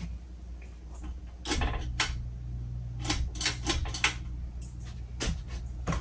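Hunter Original ceiling fan motor humming steadily, under a string of sharp clicks and light clatter that come in a quick run between three and four seconds in.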